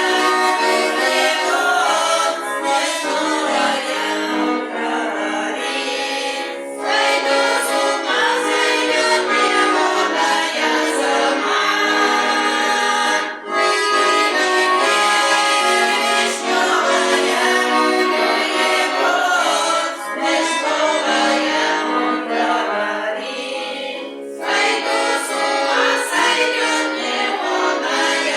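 Folk choir singing in unison with accordion accompaniment, a Russian folk-style song.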